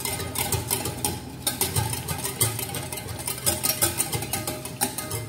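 Wire whisk beating eggs and vanilla essence in a glass bowl: a fast, uneven run of clicks of the wires against the glass, over background music.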